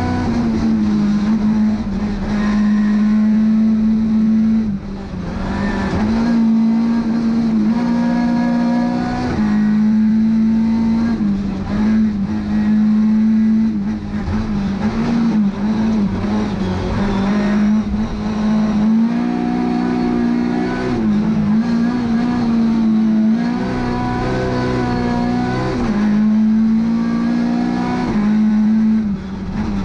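Race-tuned Lada 2101's four-cylinder engine running hard at high revs, heard from inside the cabin. The revs climb and then dip briefly every few seconds as the driver shifts gear and lifts for the bends.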